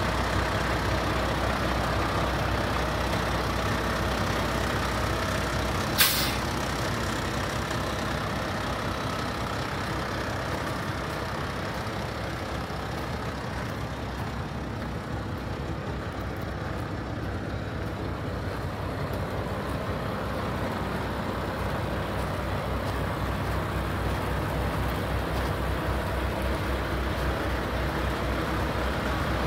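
Paccar MX-13 inline-six diesel in a Peterbilt 579 day cab idling steadily, with one short, sharp blast of released air from the truck's air system about six seconds in.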